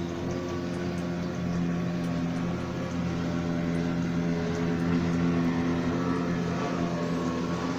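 Cat purring: a steady, low, rapidly pulsing rumble that grows a little louder after the first second or so.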